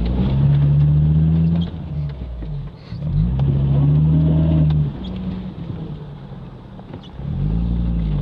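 VW T4 Syncro van's engine revving up, holding, then easing off, three times over: loud surges near the start, in the middle and near the end, with quieter running between.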